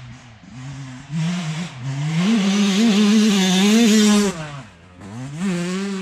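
Yamaha YZ125 two-stroke single-cylinder dirt bike engine revving hard as it comes up the trail and passes close by. Its pitch rises and falls with the throttle, drops off sharply just past four seconds, then picks up again near the end.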